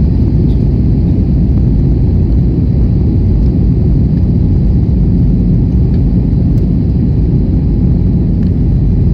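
Aircraft cabin noise in flight: a loud, steady low rumble of the engines and airflow heard from inside the cabin.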